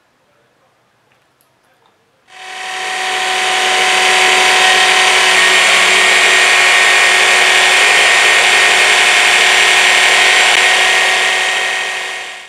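Kenwood Wizzard hand blender running on its chopper bowl, puréeing sliced bananas with milk: a loud, steady motor whine that starts about two seconds in, swells to full speed and cuts off sharply near the end.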